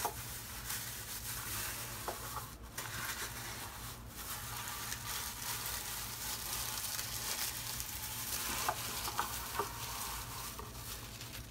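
Shredded paper packing filler rustling and crackling steadily as it is pulled out of a box by hand.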